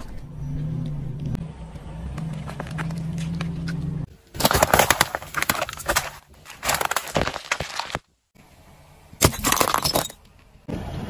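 Car tyre crushing things: a steady low engine hum, then from about four seconds in a run of loud crunches as a row of aluminium Coca-Cola cans is flattened and bursts. Near the end, a sharp breaking crash as a ceramic object shatters under the wheel.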